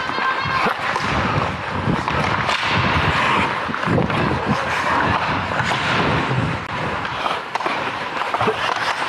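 Ice hockey skates scraping and carving on the ice, heard close up from the skating player, with a few sharp clacks of sticks and puck.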